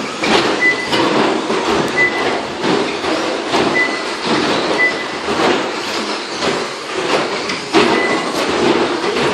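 Radio-controlled short course race cars running on a carpet track: a continuous whirr of motors and tyres with frequent knocks as the cars hit the boards and jumps, and short high beeps now and then.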